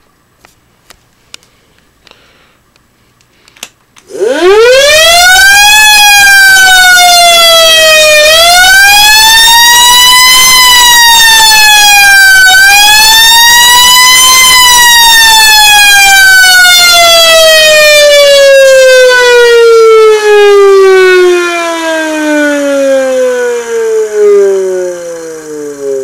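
Electric siren winding up about four seconds in after a few faint clicks, wailing up and down three times as its push-button is worked, then winding down in a long, slow fall in pitch.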